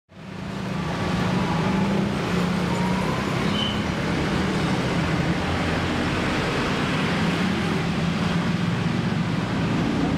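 Diesel bus engine running steadily, a low drone over a constant wash of road and traffic noise.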